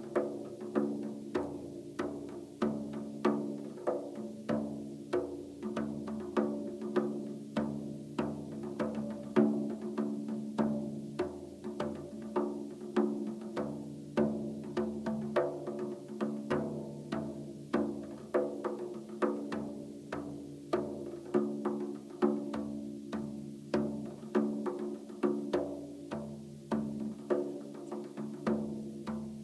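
Frame drum played by hand in a steady rhythm in five, several quick strokes a second over the drum's ringing low tone.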